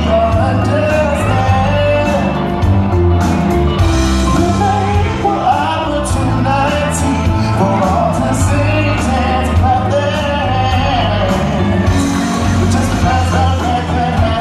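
Rock-and-soul song performed on stage, with singing over a band and a steady beat, heard in a large hall.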